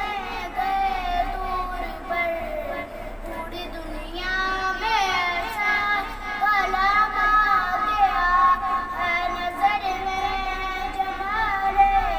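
A boy singing a naat, an Islamic devotional poem, solo and unaccompanied. He holds long notes with wavering ornaments. The voice drops softer about three seconds in, then rises again.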